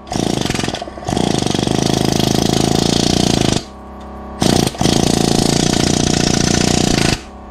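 Pneumatic air hammer (rivet gun) hammering a solid rivet into aluminum against a bucking bar: loud rapid-fire hammering in four bursts, two of them a couple of seconds long and one very short, stopping a little before the end.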